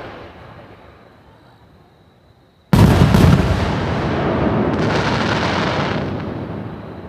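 Aerial fireworks shell bursting at close range: a loud bang about two and a half seconds in, followed by a few seconds of crackle and hiss that fade away. The tail of an earlier burst is dying away at the start.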